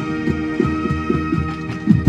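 Marching band playing a held brass chord over a steady low beat of about four pulses a second.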